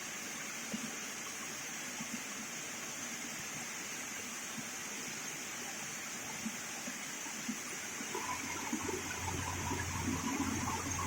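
Vertical band sawmill running with a steady rushing hiss; after about eight seconds a low hum and a faint whine come in and it gets slightly louder.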